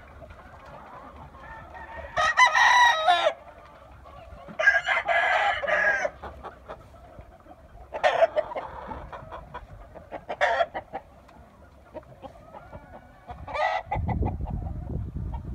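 Gamefowl roosters crowing: two long crows a few seconds apart, then shorter calls. A low rumble comes in near the end.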